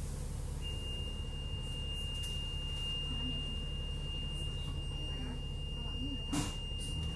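Low steady running rumble heard from the upper deck of a moving Hong Kong double-decker, with a steady high-pitched beep that starts about half a second in and holds unbroken for about six and a half seconds. A brief tap sounds near the end.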